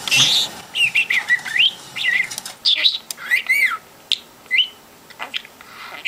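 Pet budgerigar chattering: a run of short chirps and warbled whistles that sweep up and down, with a longer rising-and-falling call about halfway through, then quieter near the end.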